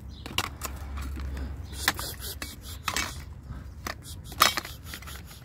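Metal clicks, knocks and scrapes from a ring-pull tin of cat food as its lid is pulled off and the food is tipped and knocked out into a plastic tray. The loudest knock comes a little over four seconds in.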